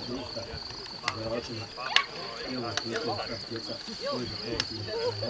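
Crickets trilling steadily at one high pitch, with faint distant shouting voices and a few sharp knocks, the loudest about two seconds in.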